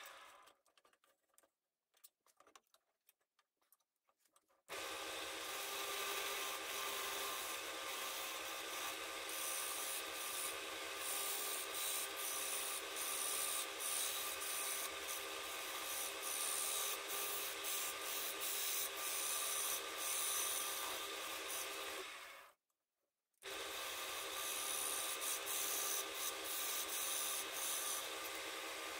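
Wood lathe running with a turning chisel cutting the spinning wood blank: a steady scraping hiss over the lathe's hum. It starts after a few seconds of near silence and drops out briefly near the end.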